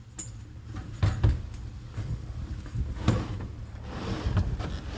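A few sharp knocks and clunks over a low rumble as a door is opened and a refrigerator is handled and shifted.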